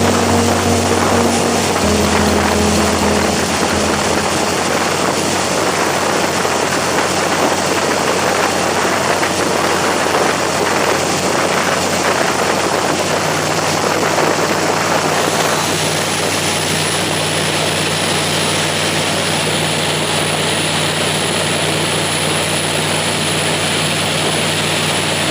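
Riverboat engine running hard under way, a steady low drone beneath a loud, continuous rushing noise.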